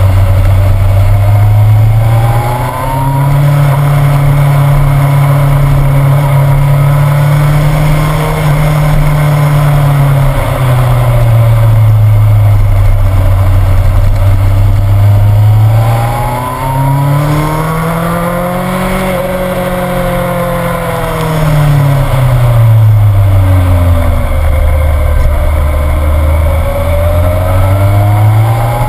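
A motorcycle engine running on a winding mountain descent, its note rising and falling slowly as the throttle is opened and closed through the bends, over steady road and wind noise.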